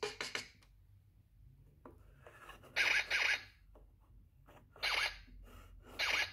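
Superstart toy keyboard's sound-effect pad pressed repeatedly, playing short electronic sound effects with gliding pitches: two close together about three seconds in, then single ones about five and six seconds in.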